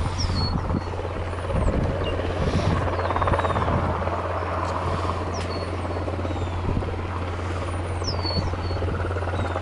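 Wind buffeting an outdoor camera microphone, with a steady low hum and occasional low thumps. A bird gives short down-slurred whistled chirps four times, a few seconds apart.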